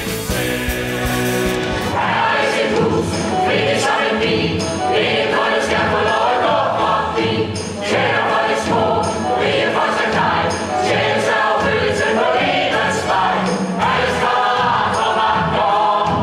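A stage-musical ensemble singing in chorus with instrumental accompaniment and a steady beat; the song changes abruptly about two seconds in.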